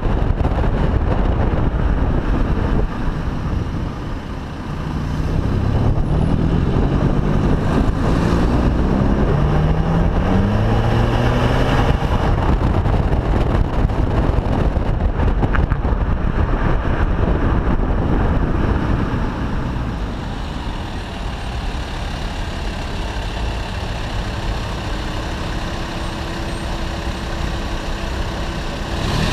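Audi A3 2.0 TDI four-cylinder turbodiesel with a Stage 1 remap and sport exhaust, heard right at the tailpipes while driving. Its pitch rises several times in a row, like pulls through the gears, in the first half, then it settles to a quieter, steadier run.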